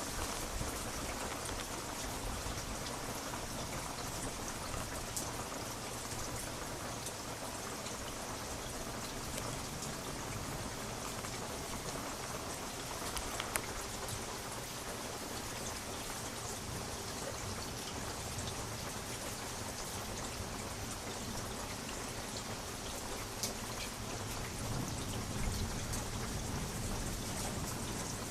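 Steady heavy rain falling and pattering on surfaces during a thunderstorm, an even hiss with an occasional sharper drop tap.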